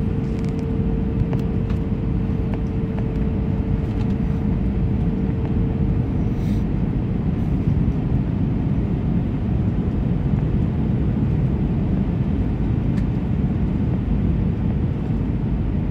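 Airbus A319 cabin noise on the landing approach: the steady roar of the engines and rushing air heard from inside the cabin. A steady hum sits in the roar and fades out about six seconds in.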